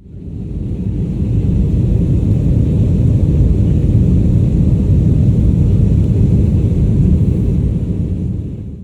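Steady low vehicle rumble with no distinct beats or tones, fading in over the first second and fading out near the end.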